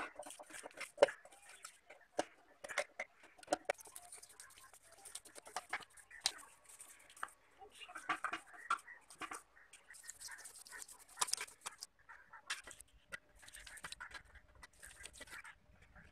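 Scattered clicks, knocks and scrapes of a screwdriver and rusty metal parts as an old pedestal fan's motor is taken apart by hand.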